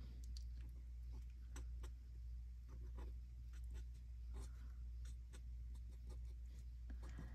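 Alcohol marker tip (Stampin' Blends) stroking and dabbing on cardstock while colouring in a small stamped flower: faint, irregular short scratches and ticks over a steady low hum.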